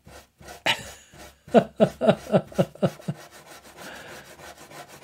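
A cloth rubbed back and forth over paper to clear a patch of still-sticky Tippex correction fluid. It runs as repeated strokes, with a run of about six short squeaking strokes in the middle that each drop in pitch, then faster, steadier rubbing.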